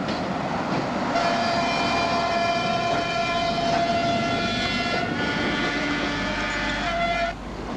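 Diesel railcar running past close by on a roadside track, its rumble carrying a steady pitched sound held from about a second in until just before the end.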